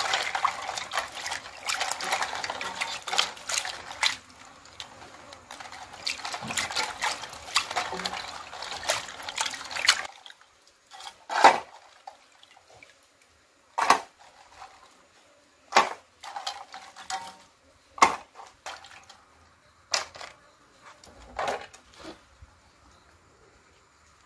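Water sloshing and splashing in a steel bowl as crab pieces are scrubbed by hand. About ten seconds in the washing stops, and separate sharp knocks follow, about one every two seconds, as washed pieces are set onto a metal plate.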